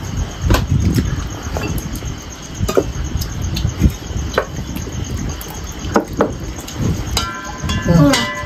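Spoons and bowls clinking and knocking during a meal, in scattered light clicks, with a brief ringing clink near the end.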